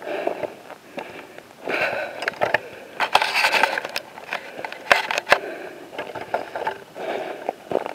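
Footsteps crunching and scuffing down a steep slope of dry grass and brush, with twigs and branches rustling and snapping against clothing. Irregular crunches and sharp clicks come in uneven bunches.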